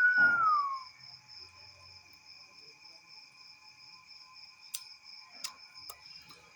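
Crickets chirring steadily. Right at the start a short, loud whine falls in pitch over about a second, and a few faint clicks come near the end.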